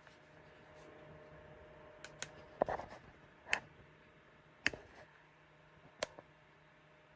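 About half a dozen sharp, separate plastic-sounding clicks start about two seconds in, at uneven gaps of about a second. The loudest is a short rattling click near the middle. Under them runs a faint steady hum.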